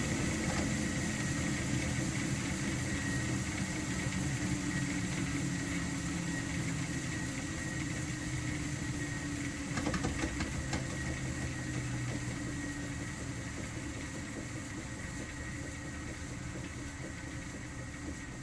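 Speed Queen TR-series washer running with a steady mechanical hum that slowly gets quieter, with a few knocks about ten seconds in. The knocking comes from play in the drive pulley, whose nut has worked loose.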